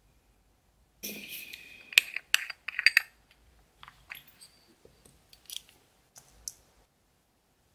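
A small jar of tiny nail ball charms being handled: a scrape about a second in, then a quick run of sharp clicks and taps on the jar, followed by lighter scattered clicks as a pick tool dips among the beads.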